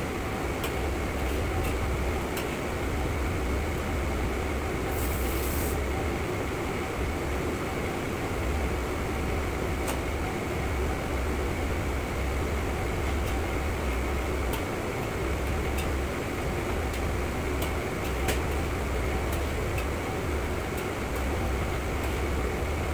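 Steady roar of a commercial kitchen's gas wok range and extraction hood, with scattered sharp clicks of a metal ladle against the steel wok as the chef stirs. A brief hiss comes about five seconds in.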